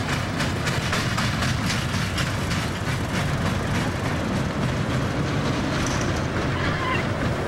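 Small carnival roller coaster train running along its steel track: a steady rumble with a continuous run of rattling clacks from the wheels over the track.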